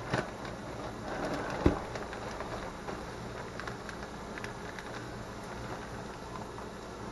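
Steady hiss of steam venting from a pressure canner, the open vent before the weight goes on, with light rustling of a plastic freezer bag and one sharp tap about a second and a half in.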